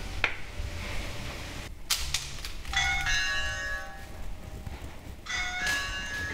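An electronic doorbell chime rings twice, about two and a half seconds apart, each ring a cluster of bell-like tones that fade out, after a single knock about two seconds in.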